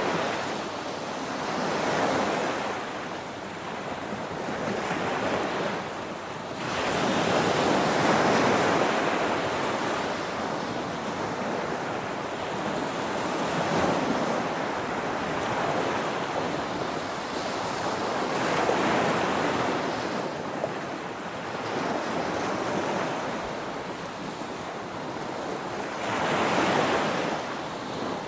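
Small waves breaking and washing up a sandy shore, the surf swelling and falling back in five slow surges.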